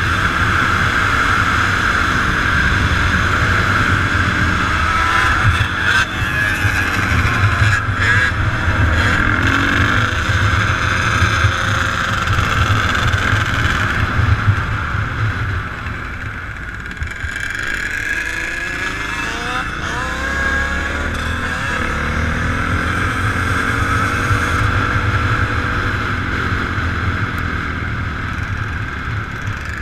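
Motorbike engines running and revving, their pitch rising and falling repeatedly as they speed up and slow down.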